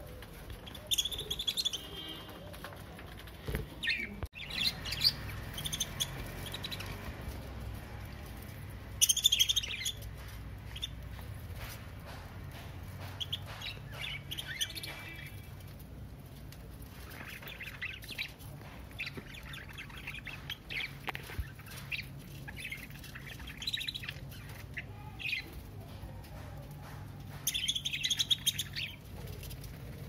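A flock of budgerigars chirping and chattering in short, scattered bursts, with louder squawks about nine seconds in and again near the end.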